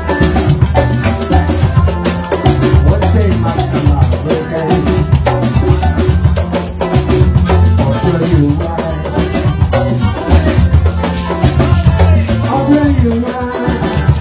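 Live band playing a dance groove: conga drums and drum kit over a steady bass line, with keyboard.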